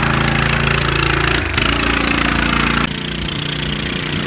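Mini bike's small engine running steadily while it pulls a trailer loaded with a riding mower. There is a brief break about a second and a half in, and the sound drops a little in level about three seconds in.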